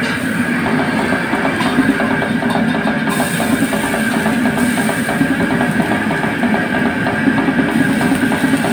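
Rock-style background music with drums and guitar, over the steady roar of a commercial wok burner.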